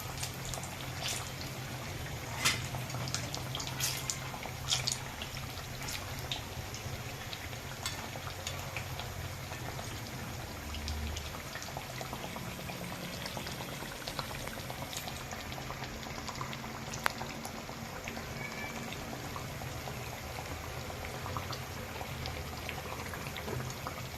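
Gram-flour-battered potato slices deep-frying in hot oil, sizzling steadily with scattered crackles and a few sharper pops. The sizzle is over a low steady hum.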